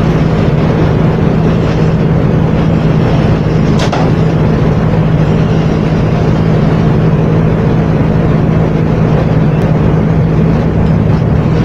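A machine motor running steadily, loud and even, with a constant low hum; a single click about four seconds in.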